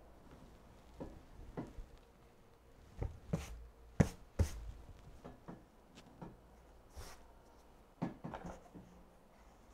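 Scattered knocks and taps of handling, a few separate clicks, the loudest a sharp knock about four seconds in. A cluster of knocks comes about eight seconds in, as a stretched canvas is handled.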